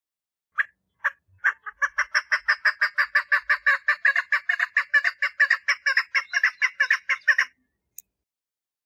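Female chukar partridge giving its mating call: two separate notes, then a fast, even run of clucking notes at about six a second that lasts some six seconds and stops abruptly.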